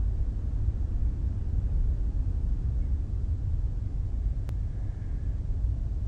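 Wind buffeting the microphone in open country: a low, uneven rumble with a faint hiss above it, and a single faint click about four and a half seconds in.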